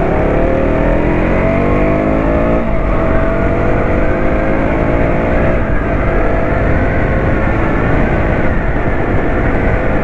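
KTM Duke 200's single-cylinder engine accelerating, rising in pitch for about two and a half seconds, then a gear change and a steadier run. Heavy wind buffeting on the helmet-mounted microphone runs underneath.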